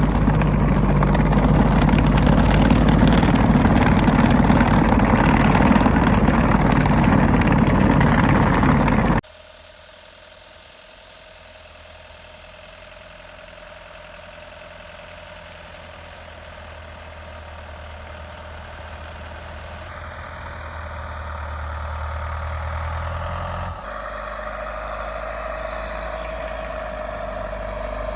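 Tucker Sno-Cat's Isuzu 4BD1T turbo diesel running, loud and steady. About nine seconds in it cuts sharply to a much quieter engine sound that grows steadily louder.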